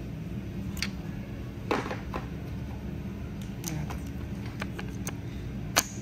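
A few light metallic clicks and clinks as small parts and tools are handled on a bare engine block, the clearest about two seconds in, over a low steady hum.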